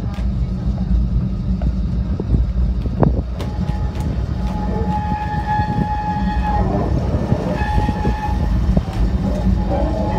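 Cable-hauled Great Orme tramcar running with a steady low rumble and occasional knocks. From about halfway through, a high metallic squeal comes and goes as its wheels take a curve in the track.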